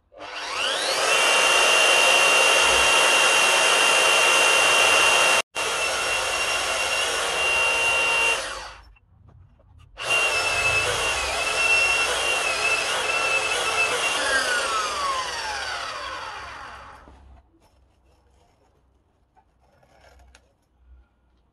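Fein KBM 50 Auto magnetic drill cutting a hole through steel plate with a 30 mm carbide-tipped annular cutter. The motor whines up to speed and holds a steady high tone while cutting, then winds down with falling tones a few seconds before the end.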